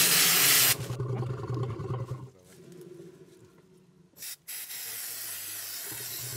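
Aerosol can of blue veterinary wound spray hissing: a loud short burst at the start, a brief spurt just past four seconds, then a steady spray from about four and a half seconds on.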